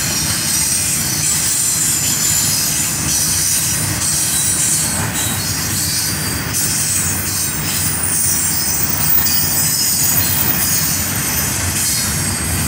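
Double-stack container train's loaded well cars rolling past: a steady low rumble of steel wheels on rail, with high-pitched wheel squeal above it.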